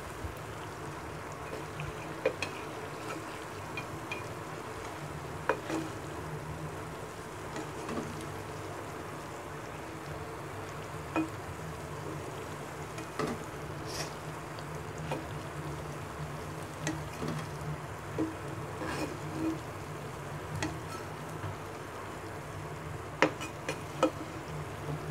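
Palm-fruit fritters sizzling in hot oil in a frying pan, with a steady low hum underneath. Scattered short clinks and scrapes of a metal spatula against the pan as the fritters are lifted out.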